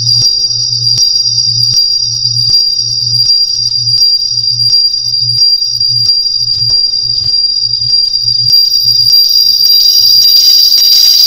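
Flatbed scanner running, its sound re-recorded through PC speakers into a microphone: a steady high-pitched whine over a low pulsing hum with sharp clicks about twice a second. The pulses come faster past the middle and fade out near the end, while a hiss grows.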